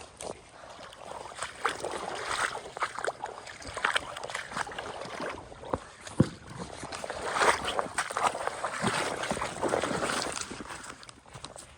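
Water splashing and sloshing in a river, coming in uneven surges with scattered sharp clicks, heaviest in the second half.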